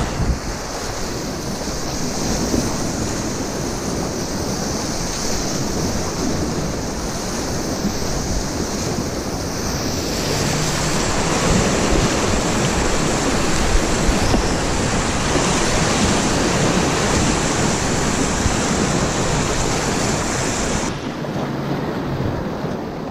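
Steady rush of river whitewater churning around a kayak, heard close up, with wind buffeting the microphone. The sound changes character about ten seconds in and again near the end.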